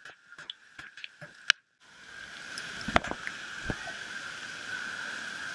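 Water splashing and running down a water slide: first a few scattered drips and splashes, then from about two seconds in a steady rush of flowing water, with a sharp splash about three seconds in.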